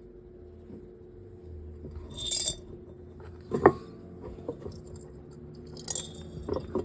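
Small metal fan parts and a screw clinking and knocking as they are handled. Bright jingling clinks come about two seconds in and again near six seconds, with a sharp knock between them and a couple of lighter taps near the end, over a steady low hum.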